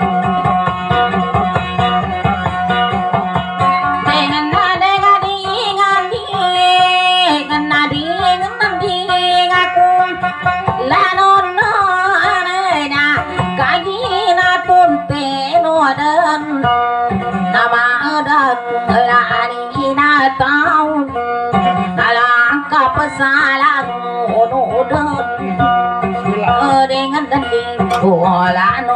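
A woman singing a dayunday song to her own strummed acoustic guitar. The guitar plays alone at first, and her voice comes in about four seconds in.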